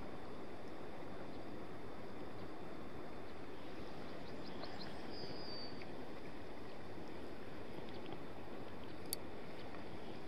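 Steady rush of flowing river water, with a brief bird chirp about halfway through and one sharp click near the end.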